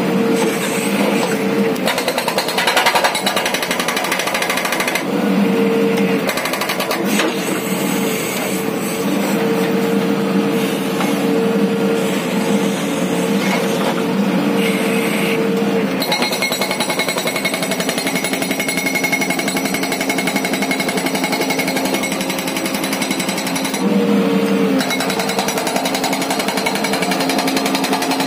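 Hydraulic rock breaker on a JCB 3DX backhoe hammering rock in rapid, continuous blows, over the steady drone of the backhoe's diesel engine. The hammering changes in tone about halfway through.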